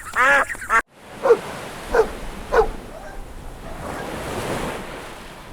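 Quacking cuts off abruptly just under a second in. Then three short barks, about two-thirds of a second apart, sound over a steady rushing noise like wind or surf.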